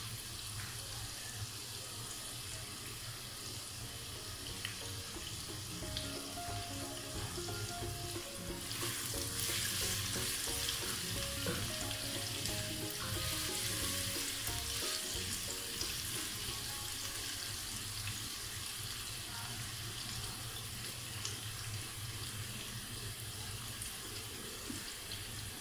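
Sliced onions sizzling steadily in hot oil in a non-stick pot, softening toward transparent in the first stage of frying. The sizzle gets brighter and louder about nine seconds in.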